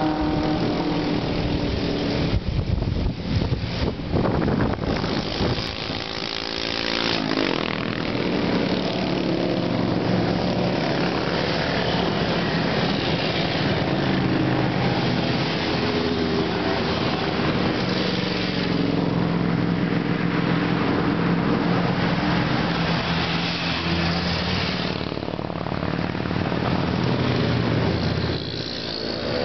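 A procession of motorcycles and small motor scooters riding past one after another. Their engines run together into a continuous sound that never drops out, swelling a little as bikes go by.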